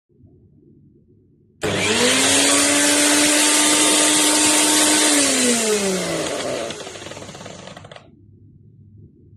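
Preethi Crown 500-watt mixer grinder motor switched on, running loudly at a steady speed for about three seconds, then switched off and winding down with a falling whine.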